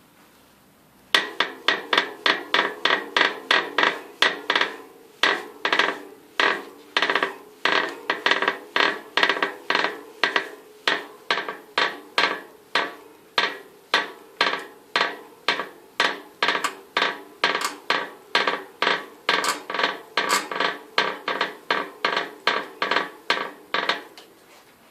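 Mavic Crossride Disc rear wheel making a sharp, ringing crack about twice a second, repeating steadily for over twenty seconds. The uploader traces the cracking to the rim itself, having ruled out the brakes, the frame and any hub bearing play.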